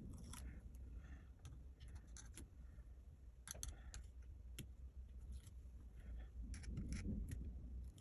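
Faint, scattered clicks and light taps of hands and small tools working on the open MacBook Pro's battery area, over a low steady hum.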